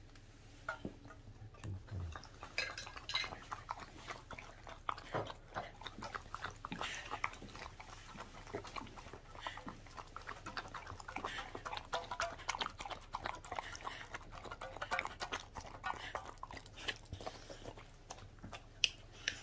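Welsh corgi licking and lapping in a stainless steel dog bowl: a quick, irregular run of wet licking sounds that starts a couple of seconds in and keeps going.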